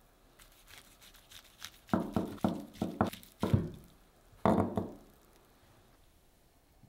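Kitchen knife slicing through a roe-coated sushi roll on a plastic cutting board: a faint crunchy sawing, then a quick run of about six knocks as the blade meets the board, and one more a second later.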